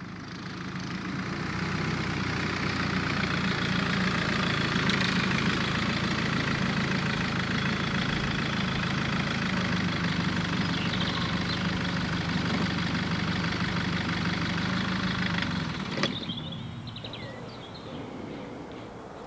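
Land Rover Freelander 2's engine idling steadily, then switched off about three-quarters of the way through with a sharp click. Songbirds chirp briefly afterwards.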